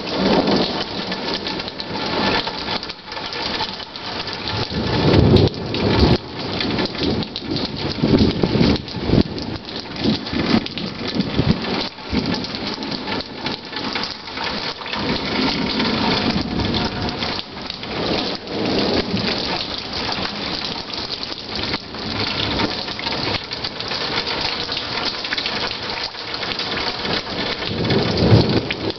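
Steady rain falling, with thunder rumbling in several long rolls through it, the loudest about five seconds in and again near the end.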